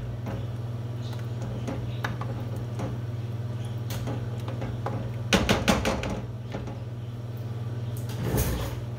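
Plastic spoon stirring thick Alfredo sauce in a metal pan: soft scraping with scattered clicks, then a cluster of louder knocks of the spoon on the pan about five and a half seconds in. A dull thump comes near the end, all over a steady low hum.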